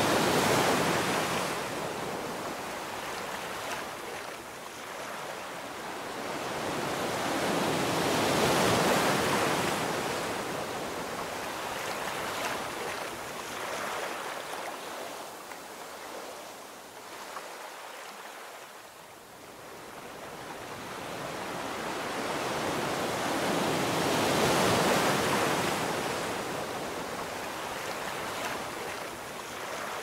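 Sea waves washing onto a sandy beach: a steady surf hiss that swells and fades, with big surges near the start, about nine seconds in and about twenty-five seconds in, and a quieter lull around eighteen seconds.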